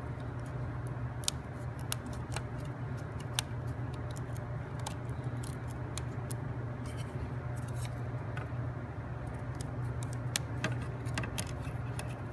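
Scattered sharp clicks and taps of thin plywood puzzle parts being handled and pressed out of their sheet, over a steady low hum.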